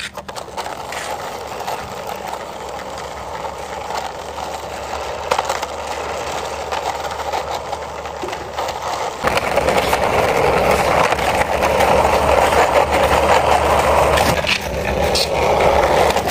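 Plastic wheels of a toy truck rolling on a rough concrete ledge, a steady rolling scrape that gets louder about nine seconds in.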